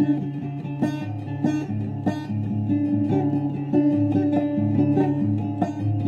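Acoustic guitar strummed in a steady rhythm.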